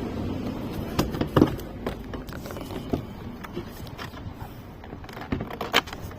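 Several sharp clicks and knocks, about five spread over the seconds, from a car door's window switch panel being worked loose from the door trim and handled.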